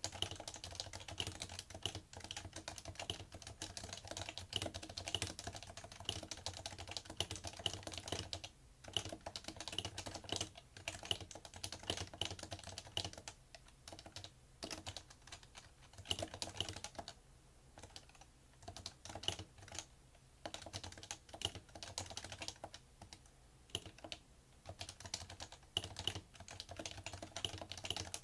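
Continuous typing on a PFU Happy Hacking Keyboard Professional2, with its Topre electrostatic-capacitive key switches clacking in quick runs broken by a few short pauses. The keystrokes carry through into the desk.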